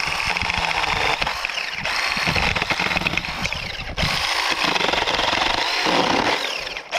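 Battery-powered mini chainsaw running and cutting through a small tree trunk, the chain chewing into the wood.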